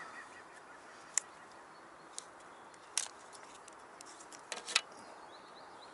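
A few light, sharp clicks and ticks from small fishing tackle being handled while a carp rig is tied, the loudest a short cluster near the end, over a faint steady outdoor hiss.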